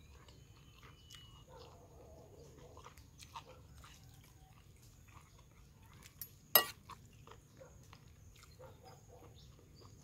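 Metal spoon and fork stirring instant noodles in a bowl, with one sharp clink of metal against the bowl a little past halfway and a few fainter clicks around it.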